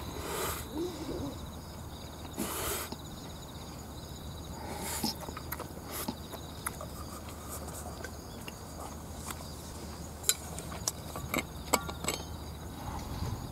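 Eating sounds: wooden chopsticks clicking and scraping in a metal can of rice, with chewing, over steady insect trilling. Several sharp clicks come between about ten and twelve seconds in, as a stainless steel thermos is handled.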